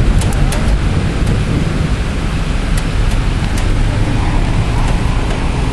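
Heavy thunderstorm rain and wind with a steady low rumble underneath, and a few sharp ticks scattered through.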